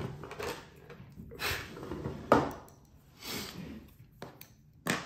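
Hands handling small items on a workbench: several brief rustling swishes and two sharp clicks, one about two seconds in and one near the end.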